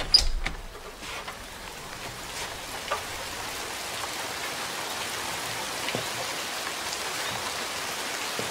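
A front door's latch clicking as it opens, then steady rain falling outside, swelling over the first few seconds as the door swings open, with the odd distinct drop.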